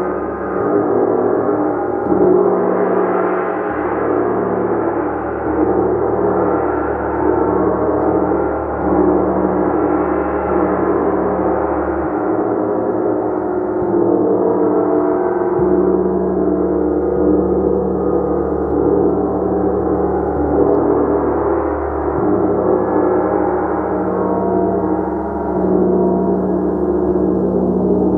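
Large gong played continuously, a dense sustained wash of overlapping shimmering tones, swelling as it is struck softly again every few seconds.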